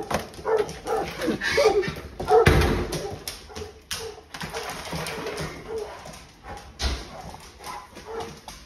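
Great Dane puppy giving short, repeated whines and yelps. There are two dull bumps, one about two and a half seconds in and one near seven seconds.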